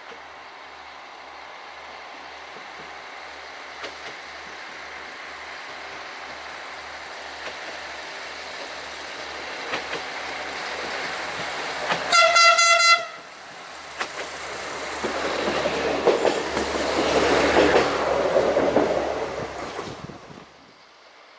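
Single-car diesel railcar approaching and passing close by, its engine and wheel noise growing steadily louder. About twelve seconds in it sounds one horn blast of about a second, and the passing noise cuts off suddenly near the end.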